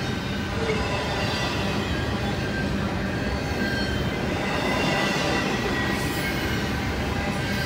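Double-stack container freight train cars rolling past, a steady rumble and clatter of steel wheels on the rails with thin high squealing tones from the wheels.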